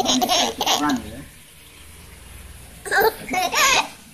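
Toddler laughing and babbling in short bursts: once for about the first second, and again near the end after a quiet pause.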